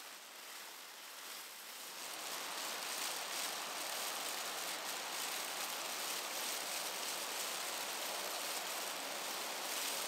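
Steady rushing outdoor ambience, an even hiss without distinct events, which grows louder about two seconds in and then holds.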